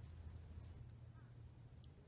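Near silence: faint outdoor ambience with a steady low rumble, a faint short chirp-like glide about a second in and a faint tick near the end.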